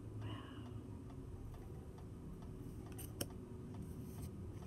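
Tarot cards being handled and shifted through the deck: a few soft clicks and a sharper tick a little past three seconds in, over a low steady room hum.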